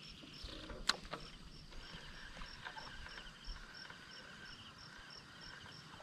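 Crickets and other insects calling: a regular high chirp about two and a half times a second over a buzzing, pulsing trill, with one sharp click about a second in.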